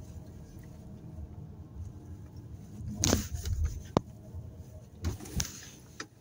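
Low steady rumble of a Renault Kadjar driving slowly, heard inside the cabin. About three seconds in, a loud swish drops quickly in pitch, followed by a sharp click a second later and two short knocks near the end.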